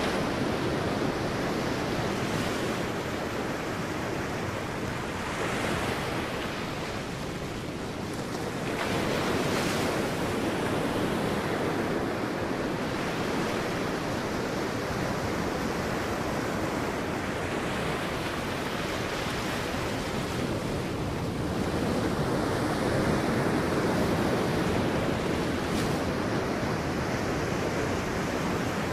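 Sea waves breaking and washing on a beach: a continuous surf wash that swells and eases, with wind on the microphone.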